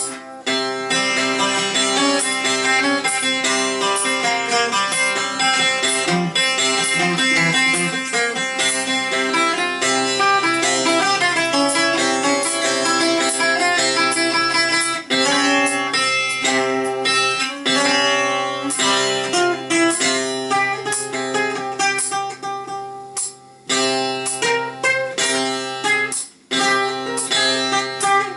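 Bouzouki played with a pick: a continuous, busy run of plucked melody notes, with a couple of brief breaks near the end.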